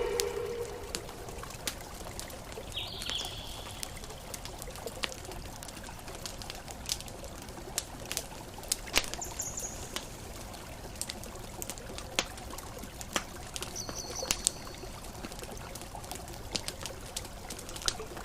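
Campfire crackling, with irregular sharp pops over a steady wash of water from gentle ocean waves. Three brief high chirps stand out: about three seconds in, near the middle, and around two-thirds of the way through.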